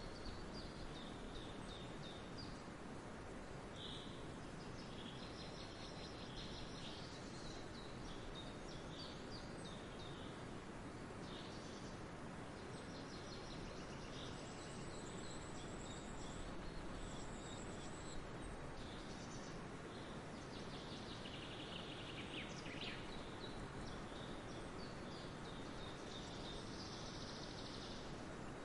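Birds chirping on and off over steady outdoor background noise. The calls are short and scattered, with a busier run of chirps about three-quarters of the way in.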